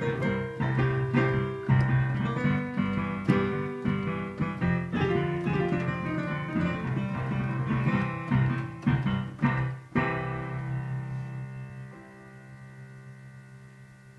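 Digital piano playing blues, low left-hand notes under busy right-hand chords and runs. About ten seconds in a final chord is struck and left to ring, fading away.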